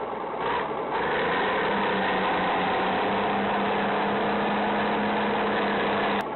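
Heavy diesel engine running steadily under load, as when a crawler bulldozer tows a truck out of deep mud. The sound swells about a second in and cuts off suddenly near the end.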